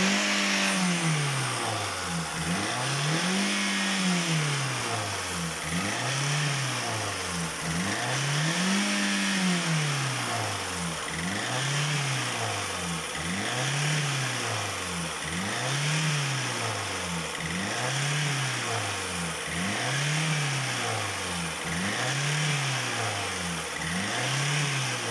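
Rebuilt 1.8 Ford Rocam four-cylinder petrol engine in a Ford Ikon, revved over and over: the pitch climbs and drops back about a dozen times, roughly every two seconds.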